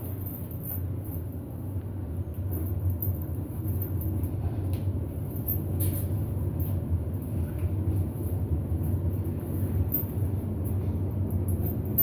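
Modernized elevator car in motion: a steady low rumble and hum of the ride, growing a little louder about two to three seconds in.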